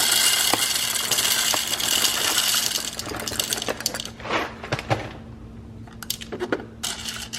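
Coffee beans poured into the bean hopper of a Breville Touch espresso machine: a dense, high hiss for about three seconds, then a few light clicks and knocks.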